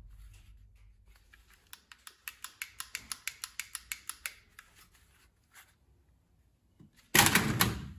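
A rapid run of sharp mechanical clicks, about five a second for a couple of seconds, from a toy gun's mechanism. Near the end comes a single loud burst of rushing noise lasting under a second.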